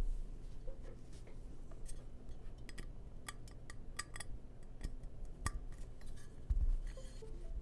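Irregular keystrokes on a KBD67 MK.II custom mechanical keyboard with Gateron Black Ink V2 linear switches on an FR4 half plate, a muted, poppy typing sound, with a low thump about six and a half seconds in.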